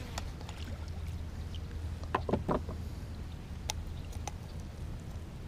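Water splashing and short knocks as a northern pike is brought to the side of a fishing boat and lifted out, the loudest cluster about two seconds in, over a steady low rumble.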